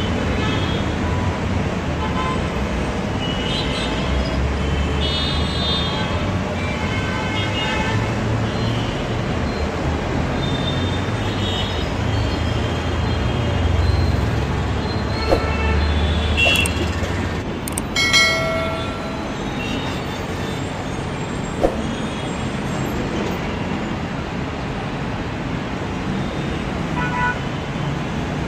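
Steady road traffic noise with a low rumble, and vehicle horns tooting briefly several times, mostly in the first half. A few sharp clicks come in the middle.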